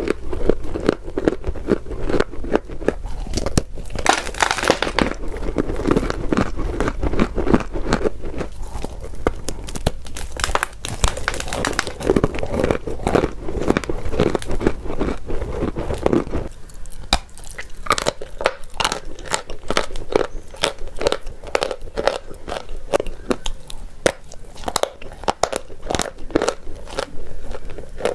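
Chalk being bitten and chewed close to the microphone: a dense run of crisp crunching that thins out, about two-thirds of the way through, to sharper, separate crackles.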